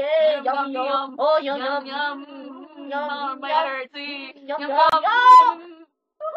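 Girls' voices chanting and singing without words. One holds a steady low note while another sings a wavering higher line, ending in a loud rising cry about five seconds in.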